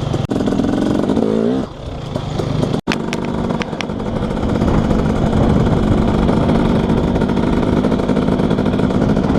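KTM 250SX single-cylinder two-stroke dirt bike engine with an FMF Powercore 2 silencer, revving up and down while riding for the first second and a half. It then runs at steady high revs, with a very brief dropout just under three seconds in.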